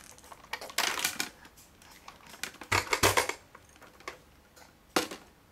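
A kitchen strainer being handled and knocked about by a baby: irregular clicks and clattering knocks, the loudest a cluster about three seconds in and another about five seconds in.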